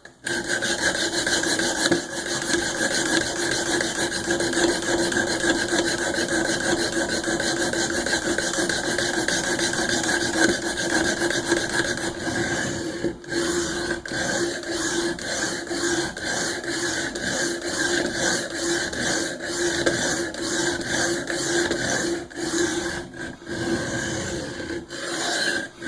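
A steel knife blade being stroked back and forth on the abrasive plate of a Work Sharp guided sharpening system, a continuous grinding rasp. About halfway through it breaks into separate strokes with short gaps between them. The edge is being ground to raise a burr.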